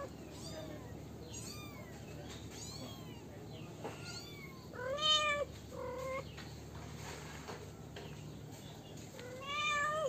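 Kittens meowing in high, thin calls, several of them one after another. Faint calls come early, the loudest about halfway through, and another loud one starts near the end.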